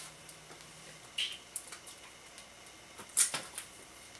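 Vinyl LP sleeves being flipped through in a record shelf: scattered soft rustles and taps of cardboard jackets, with a sharper knock just after three seconds in.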